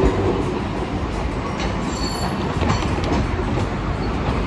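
Hiroden 1900-series streetcar rolling past and away over the track junction. Its wheels clack over the switches and crossings, with a brief high wheel squeal about two seconds in.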